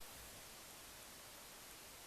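Near silence: steady faint hiss of a security camera's microphone, with no distinct sound.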